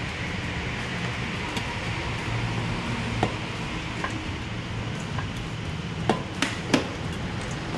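A few sharp knocks and clicks of work on a scooter, heard over a steady low hum; three louder knocks come close together about six seconds in.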